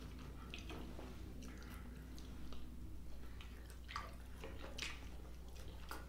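Close-up chewing: soft wet mouth smacks and squishes of a man chewing a mouthful of quinoa with sautéed sausage, onions and bell peppers.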